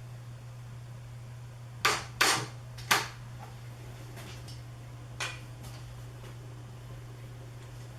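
A few short, sharp knocks of tools and MDF pieces being handled, three close together about two to three seconds in and a fainter one a couple of seconds later, over a steady low hum.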